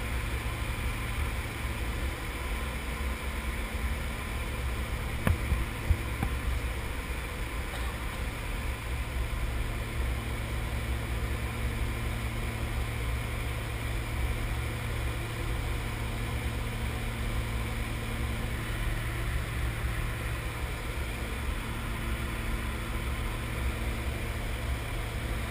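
Steady drone of a jump plane's engines and propellers with rushing air inside the cabin, with a couple of brief knocks about five seconds in.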